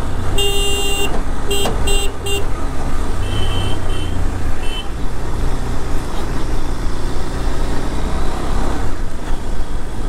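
A vehicle horn honks: one blast of about half a second, then three quick toots. A little later a fainter, higher-pitched horn beeps three times. Under it all runs the steady engine and road noise of a KTM 390 Adventure motorcycle being ridden.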